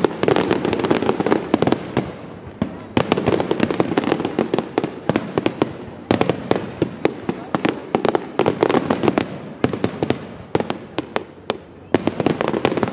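Aerial firework shells from a large display bursting in rapid, overlapping bangs and crackles, many a second, over a continuous rumble. The barrage comes in dense waves that swell and ease every few seconds.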